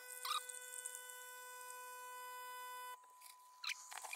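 A steady, even-pitched tone that cuts off sharply about three seconds in. It is followed by a few sharp clicks as the lid of a Bosch Tassimo pod coffee machine is lifted.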